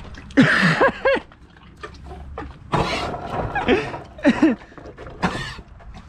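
A horse coughing several times in separate bursts, as if it had swallowed water the wrong way while drinking.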